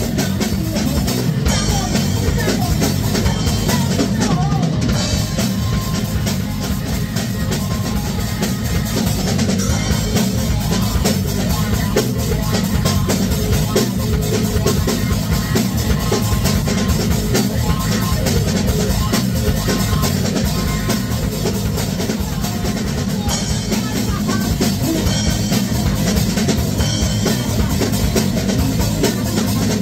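A band playing a song together: drum kit with kick and snare driving a steady beat under electric guitars and bass.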